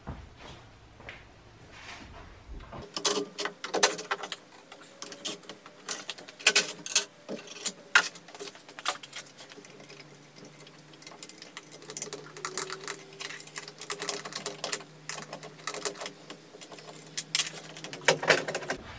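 Irregular clicks, taps and metallic clatter of hand tools and fittings as the intercooler's clips, bolts and pipework are undone in an engine bay. The clicks come thickest from about three seconds in, with a few louder knocks.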